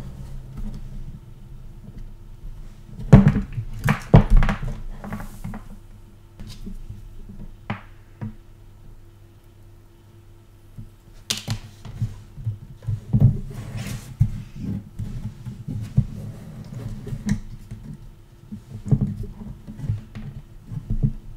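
Small tools clicking, tapping and knocking on a workbench during circuit-board rework, with scattered single clicks and a few louder clusters, over a steady low electrical hum.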